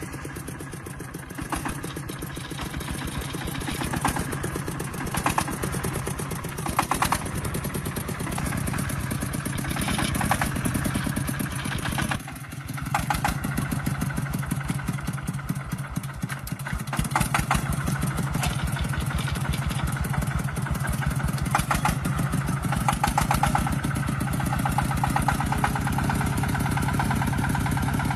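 Small diesel engine running with a rapid, even firing beat, just after starting. It dips briefly about twelve seconds in, then runs on louder and steadier.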